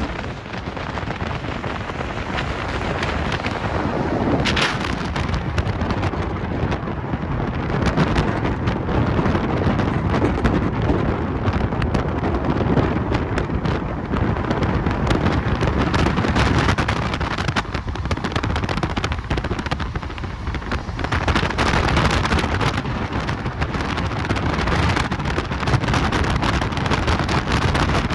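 Wind and road noise from a moving car, a steady rumble with gusts buffeting the microphone.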